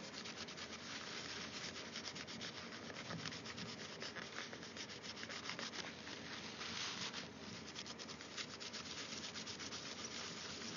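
Rapid, steady back-and-forth rubbing as old, hardened thermal paste is wiped off a laptop CPU with isopropyl alcohol.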